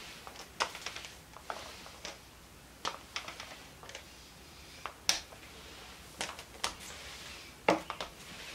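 Scattered light clicks and taps, irregular and about one or two a second, from handling a small foam paint roller as it spreads a topcoat over a tabletop. The sharpest tap comes near the end.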